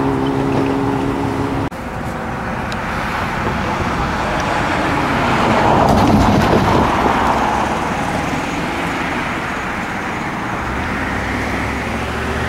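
A steady engine drone cuts off abruptly under two seconds in. Then a passing road vehicle is heard, its noise swelling to a peak about six seconds in and fading away. A low steady hum comes in near the end.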